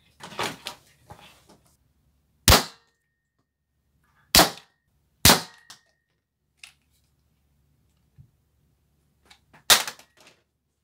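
Spring-powered foam-dart pistol with a rotating triple barrel firing: four loud, sharp snaps spread over several seconds, with fainter clicks of the barrel and handling between them.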